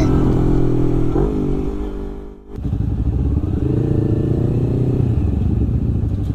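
A tuned, bored-out 244cc Yamaha Aerox scooter's single-cylinder engine running, then, after a cut about two and a half seconds in, a Honda CBR250RR's parallel-twin engine at low revs. The twin's revs rise and fall once near the middle.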